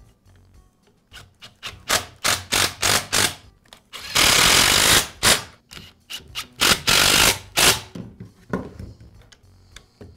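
Cordless impact driver running screws into a string trimmer's shaft housing. A string of short trigger bursts comes first. About four seconds in and again about seven seconds in there are longer runs of rapid hammering as the screws seat, and a few short blips follow near the end.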